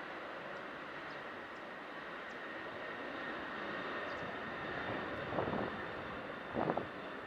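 Ryanair Boeing 737 jet engines at takeoff power, a steady rushing roar with a thin whine on top that slowly grows louder. Two short bursts of wind noise hit the microphone near the end.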